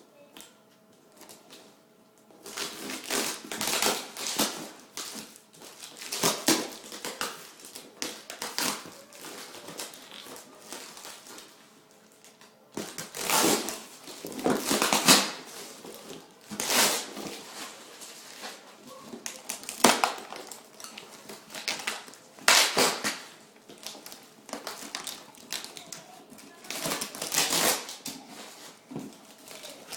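Packaging wrap being torn and crumpled by hand, in irregular rustling, crinkling bursts that begin a couple of seconds in.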